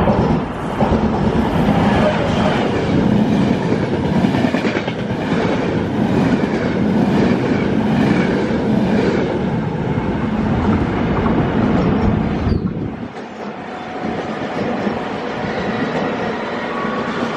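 Locomotive-hauled Intercity train passing through the station at speed close by, its wheels clattering rhythmically over the rail joints. About twelve and a half seconds in, the last coach clears and the noise drops suddenly, leaving the quieter, steadier sound of another train running on a farther track.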